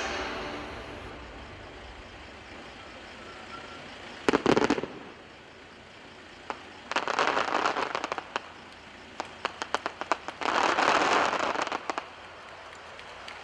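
Aerial fireworks: one loud burst about four seconds in, then two spells of dense crackling with scattered single pops between them, around seven seconds and again near eleven seconds.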